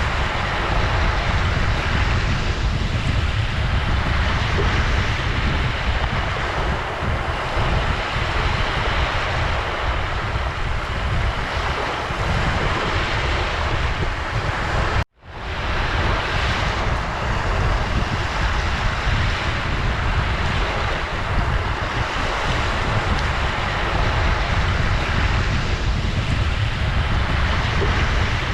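Ocean surf washing in steadily with a strong low rumble and slow swells. About halfway through, the sound cuts out for a split second and fades back in.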